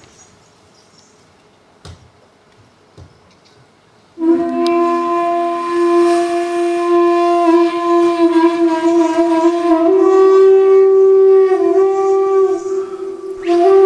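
A wind instrument comes in about four seconds in, after a quiet stretch with a couple of soft knocks, and plays long held notes that step up and down in pitch a few times.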